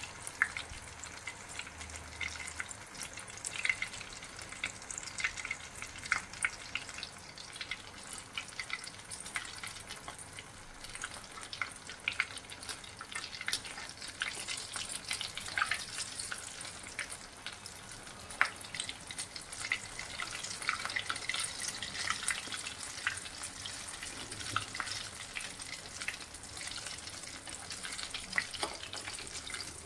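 Bread rolls deep-frying in hot ghee in a kadhai: a steady sizzle with many small crackles and pops.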